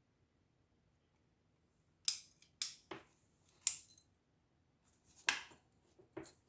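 About six sharp clicks and knocks of hard objects being handled, bunched together a couple of seconds in with two more near the end.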